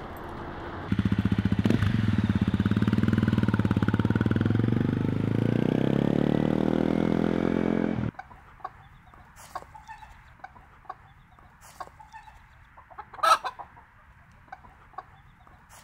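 Dirt bike engine running and revving, its pitch climbing as it pulls away, until it cuts off abruptly about eight seconds in. Then a quieter stretch of scattered clucks from chickens, with one louder call near the end.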